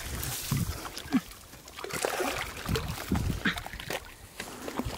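Water splashing and trickling in small, irregular bursts as people work it by hand.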